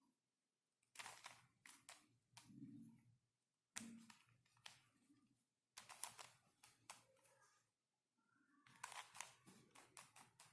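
Faint clicking and rattling of a plastic 5x5x5 Ultramorphix puzzle as its layers are twisted, in about four short bursts of turns with pauses between.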